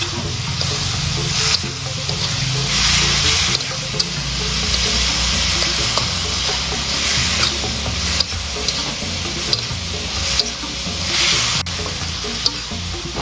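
Chili-tomato sambal sizzling in hot oil in a metal wok while a metal spatula stirs and scrapes through it, with frequent small clicks of the spatula against the pan.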